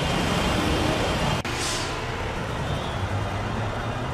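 Busy street traffic noise with vehicle engines running as a low steady rumble. Sound cuts about a second and a half in to a similar street scene, and a short hiss follows.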